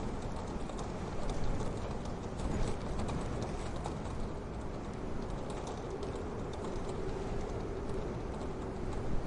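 Wood fire crackling in a wood-burning stove: scattered sharp pops and clicks over a steady low rumble.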